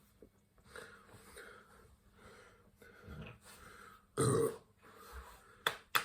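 A man burps once, loudly and deep, a little over four seconds in: a cola-induced burp. A few sharp clicks come near the end.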